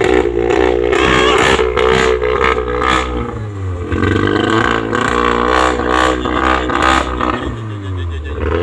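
Volkswagen Golf 7R's turbocharged 2.0-litre four-cylinder engine and exhaust revving repeatedly, the pitch climbing and dropping, with several sharp cracks in between and a fall in revs near the end.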